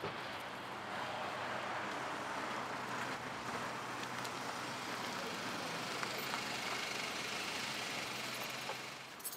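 A car idling steadily: a low hum under an even hiss, which drops away about nine seconds in.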